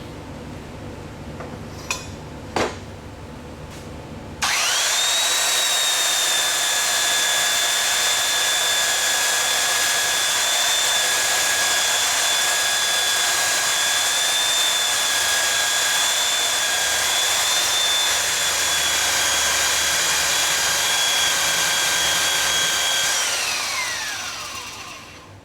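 Electric belt sander switched on about four seconds in, after a couple of sharp clicks, running steadily with a high whine, then switched off and spinning down with a falling pitch near the end.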